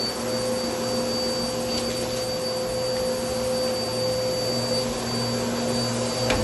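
Vacuum cleaner running steadily over a rug: a constant motor hum with a thin high whine, and a brief click near the end.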